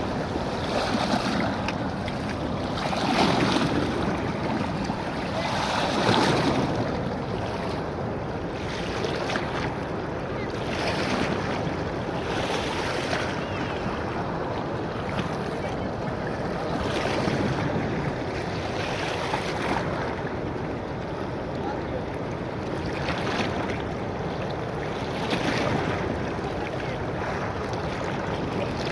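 Sutlej floodwater rushing through the headworks, a steady roar of water that swells and eases every few seconds, with wind buffeting the microphone.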